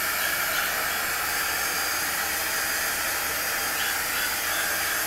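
Heat embossing wand blowing with a steady hiss, its hot air heating wet acrylic pour paint to burst surface bubbles and bring up cells.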